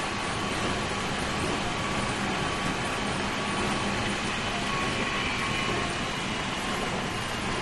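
Meitetsu Series 3100 electric train running steadily at speed, with an even rolling rumble and faint steady high tones over it.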